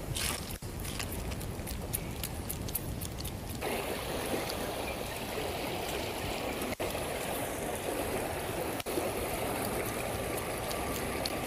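Shallow river current running over a rocky riffle: a steady rush of water that grows louder about three and a half seconds in. A few faint ticks sound in the first seconds.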